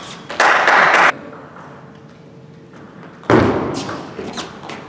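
Table tennis rally: the ball clicks off the rackets and the table again and again. Two louder rushing bursts of noise come through, a short one about half a second in and another about three seconds in that fades away.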